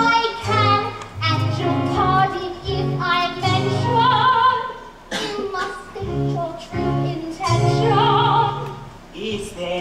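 A woman singing a musical-theatre number with vibrato, in phrases broken by short breaths, over an instrumental accompaniment.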